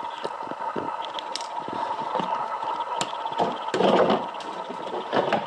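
Plastic splash guard being worked off a car's underside: scattered knocks and clicks, with a louder scrape about four seconds in and another near the end, over a steady hum.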